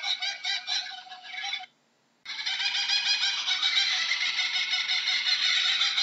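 Laughing kookaburra call: a fast, continuous run of repeated notes that cuts out suddenly for about half a second of silence about two seconds in, then starts again.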